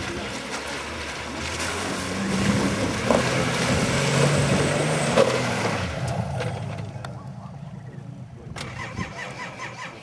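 Off-road SUV's engine revving hard under load as it drives through mud and up a steep dirt slope. The engine is loudest for a few seconds and then drops back about six seconds in.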